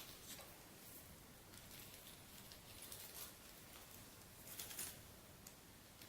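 Near silence with faint, brief rustles and light clicks of small items being handled, a little louder about four and a half seconds in.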